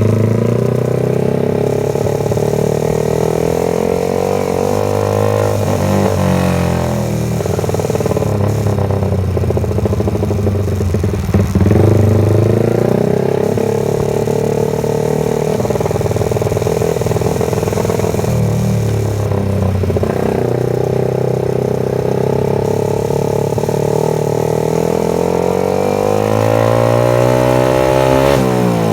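Yamaha TFX150 motorcycle's single-cylinder engine running and being revved, its pitch rising and falling several times and climbing steadily near the end.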